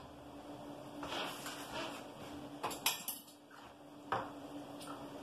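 Metal spoon clinking and scraping against a tin can and a cooking pan as tomato paste is spooned out, with a few sharp clinks about three seconds in and a single knock about a second later. A faint steady hum runs underneath.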